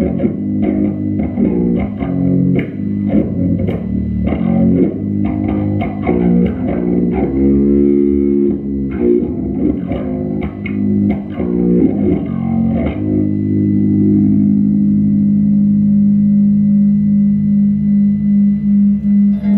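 Live electric guitar and bass playing a slow, heavy blues riff, then from about two-thirds of the way through holding one low chord that rings on, its loudness wavering in even pulses near the end.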